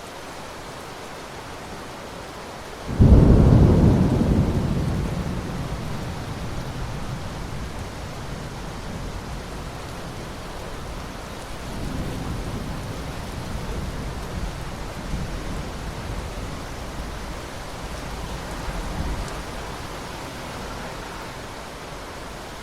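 Steady rain hissing, with a sudden clap of thunder about three seconds in that rumbles away over several seconds, and further low thunder rumbles later on.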